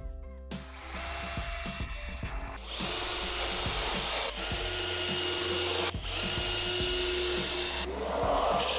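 A power tool running under background music, with a steady whine. It cuts out briefly a few times and starts again.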